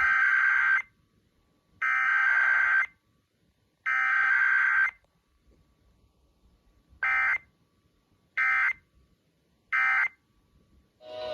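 Emergency Alert System SAME digital data bursts, a warbling two-tone modem squawk. Three bursts of about a second each, a second apart, are the header. Three short end-of-message bursts follow, the data-only form of a weekly EAS test.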